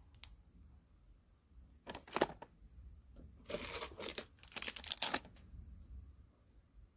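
Clear plastic sleeves of packaged stationery and a plastic storage box rustling, crinkling and clicking as they are handled. There is a light click just after the start, a short rustle near two seconds, and the loudest rustling from about three and a half to five seconds in.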